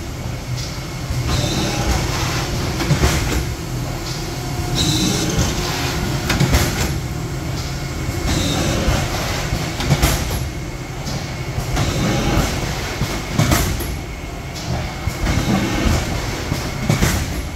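Industrial thermoforming machine running: a steady mechanical din with clacking, and a sharper burst about every three and a half seconds as the machine cycles.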